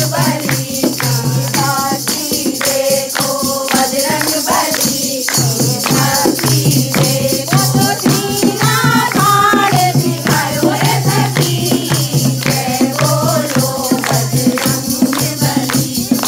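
Kirtan: a group of women singing a devotional hymn together, with steady rhythmic hand-clapping and a dholak drum keeping the beat.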